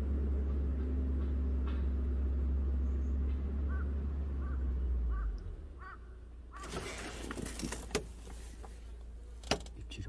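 Wind buffeting the microphone in a steady low rumble that drops away about five seconds in; a bird gives four short calls just before it stops. After that, crackling, rustling noise with a few sharp clicks.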